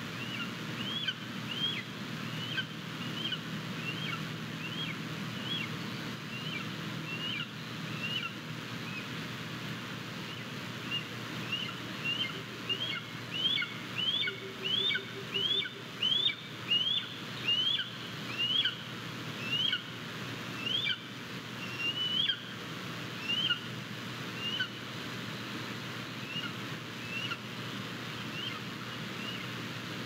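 A young Japanese golden eagle gives a long series of thin, high chirping calls, each a quick rise and fall in pitch, about one a second or a little faster, loudest in the middle, over a steady background hiss.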